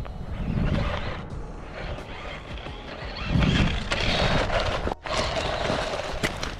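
Small 4000 kV brushless-motor RC truck driving on loose dirt: the motor whining as it is throttled, with the tyres scrabbling and throwing dirt.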